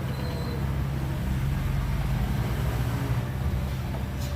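Heavy diesel engine of earthmoving machinery running steadily with a deep, even drone.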